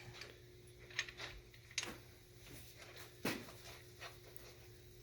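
A few faint, sharp clicks and knocks of hand tools on metal, about three over a few seconds, while a supercharger bracket bolt is being fitted, over a faint steady hum.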